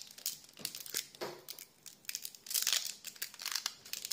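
Foil wrapper of a Pokémon booster pack crinkling and tearing as it is opened by hand, in a string of short rustles with the longest a little past the middle.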